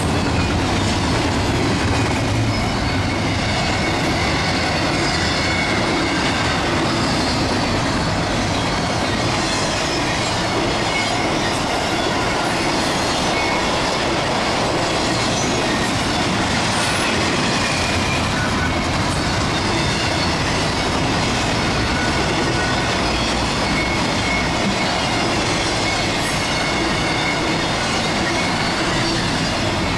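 CSX intermodal freight train's double-stack and trailer cars rolling past at speed, wheels clattering steadily on the rails, with a faint wheel squeal now and then.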